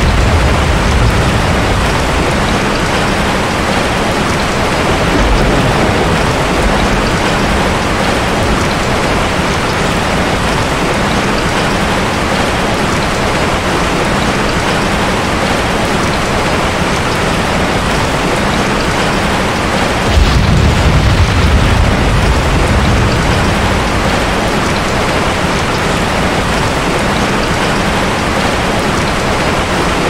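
Steady, heavy rain falling, with low rumbles of thunder swelling up at the start and again about two-thirds of the way through.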